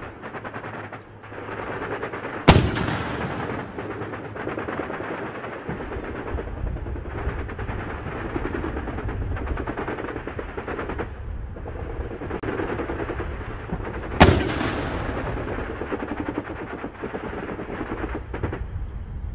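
Armored tracked vehicles running with a dense, steady rattle of engine and tracks. It is cut twice by a loud, sharp report, about twelve seconds apart, each ringing off into the distance.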